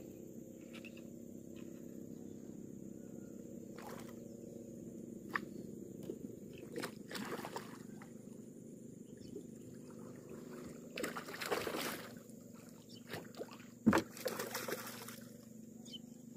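Hooked giant snakehead thrashing and splashing at the surface beside the boat in several bursts, with one sharp knock about two-thirds of the way through, over a faint steady hum.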